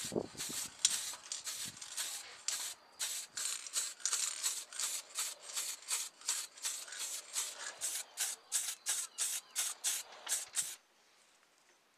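Aerosol spray can of paint hissing in short quick bursts, about three a second, as a model car body shell is sprayed. The spraying stops near the end.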